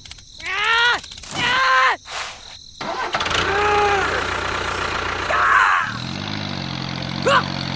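Two short cries falling in pitch, then an engine starts about three seconds in and settles into a steady idle from about six seconds.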